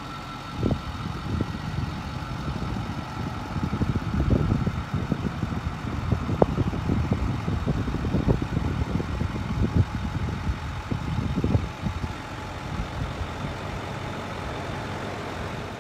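2008 Ford F-550's Power Stroke V8 turbo diesel idling steadily, with irregular low buffeting on the microphone over most of the stretch.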